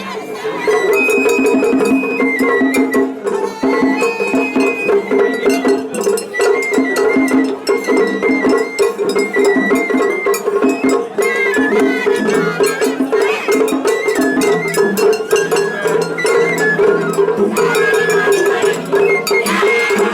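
Japanese festival hayashi music: a shinobue bamboo flute plays a high melody over steady taiko drumming and the clang of a small metal hand gong.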